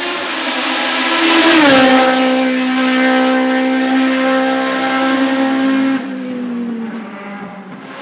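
Hillclimb race car engine running hard at high revs. Its pitch drops sharply about a second and a half in, holds steady, drops again about six seconds in and fades.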